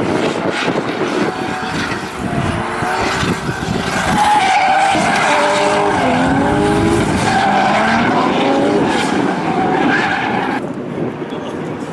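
Drift car sliding sideways: engine revving hard and tyres squealing, the pitch wavering up and down as the throttle is worked through the slide. The sound drops away and gets quieter about ten and a half seconds in.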